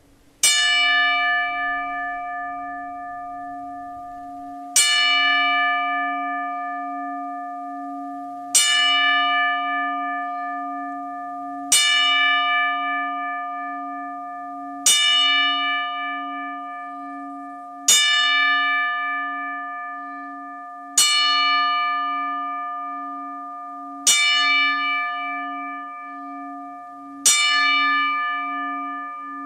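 A single bell struck nine times, one stroke every three to four seconds, each ringing on and fading before the next. It is a ten-bell salute tolled in memory of a dead wrestler.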